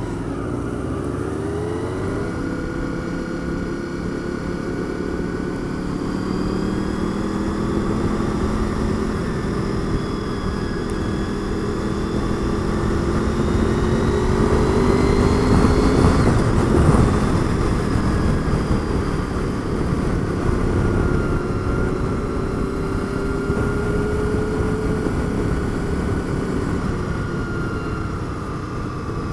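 Honda VFR800's V4 engine pulling away and accelerating, its pitch climbing steadily for about fifteen seconds, then holding a steady cruise and easing off near the end. Wind rushes over the microphone throughout.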